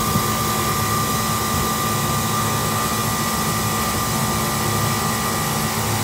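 Reach-in freezer condensing unit running: compressor and condenser fan making a steady hum with a steady high whine on top. The compressor is running but not pumping (suction not pulling down, head pressure rising), which the technician suspects is a bad suction valve, leaving it overheating and cutting out on overload.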